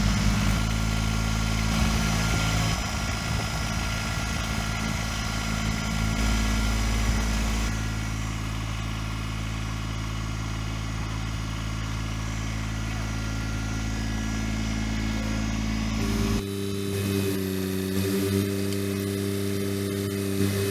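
Kubota BX23S subcompact tractor's small diesel engine running steadily, its note changing partway through as the engine speed or load shifts.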